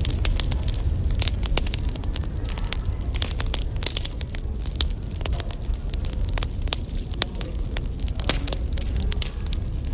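Firewood burning, crackling with many sharp, irregular pops over a steady low rumble.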